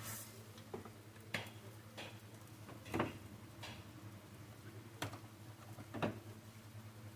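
A series of light clicks and taps, about eight in seven seconds at uneven spacing, the sharpest around three seconds in, over a steady low hum.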